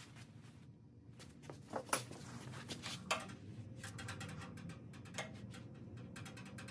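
Faint scattered clicks and light taps from a tape measure and sheet-metal bracket being handled on a radiator support, a few sharper ones about two, three and five seconds in, over a low background hum.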